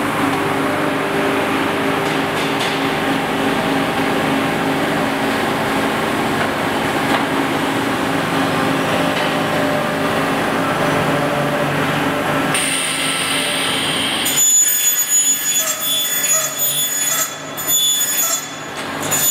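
Machinery running on an aluminium extrusion line: a steady hum with a few low tones, changing about two-thirds of the way through to a higher ringing machine sound typical of a saw cutting the aluminium profiles.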